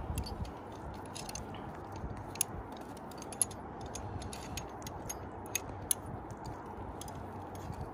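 Climbing hardware being handled: light metal clinks and a few sharp clicks over a steady background hiss.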